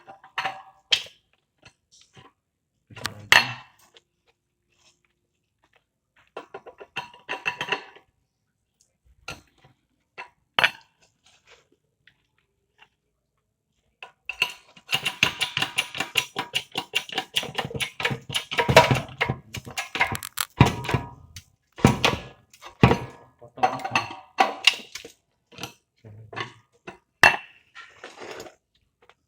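Scattered knocks and clicks, then a dense, rapid clatter from about halfway through that lasts several seconds, as cut materials and tools are handled at a workbench.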